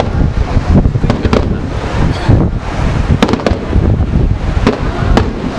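Fireworks display: aerial shells bursting, several sharp bangs over a continuous low rumble of booms.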